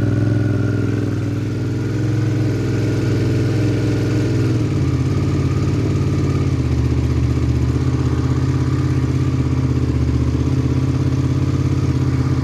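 Carbureted 2002 Suzuki SV650's 645 cc V-twin idling steadily as it warms up from a cold start in below-freezing air. Its note turns deeper about five seconds in.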